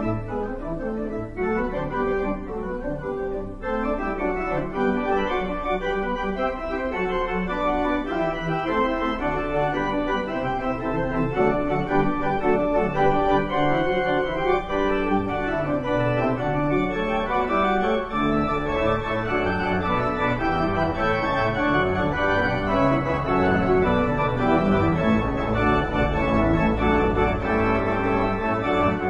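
Church organ playing a postlude in full sustained chords with a moving bass line, growing slightly fuller and louder, with a deep pedal bass in the last few seconds.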